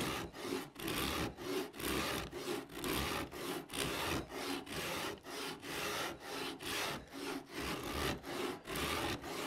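Shinto saw rasp being pushed back and forth across a wooden guitar neck in quick, even strokes, about three a second. Each stroke is a coarse rasping scrape as the teeth cut wood away to rough out the neck's back contour.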